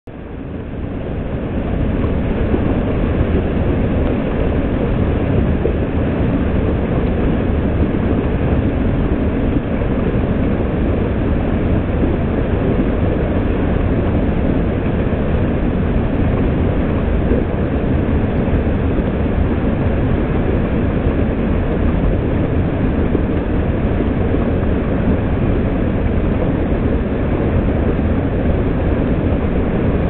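Highland waterfall running full after overnight rain: a steady, loud rush of heavy water pouring over rocks, deepest in the low rumble. It fades in over the first two seconds.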